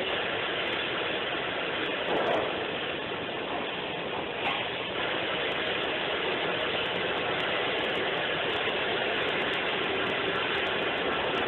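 Repaired industrial belt conveyor running on its start-up test, a steady, continuous machine noise with a couple of brief louder moments a few seconds in.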